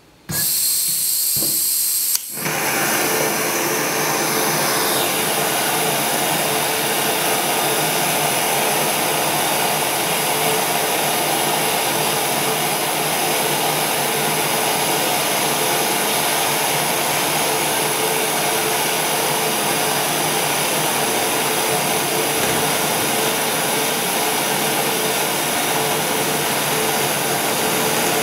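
Handheld gas torch on a cartridge: gas hisses as the valve is opened, a sharp click about two seconds in as it lights, then the flame burns with a loud, steady rushing hiss.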